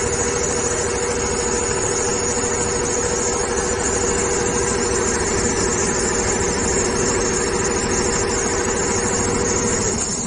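Richpeace double-head automatic industrial sewing machine running, its needles stitching at speed in a fast, even beat under a steady high whine and a lower hum. The whine and hum cut off near the end as the machine stops.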